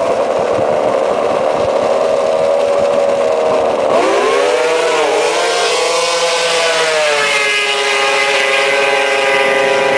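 Racing snowmobile engines running at high revs. About four seconds in, the pitch dips and swoops, then climbs steadily as the sleds accelerate down the ice.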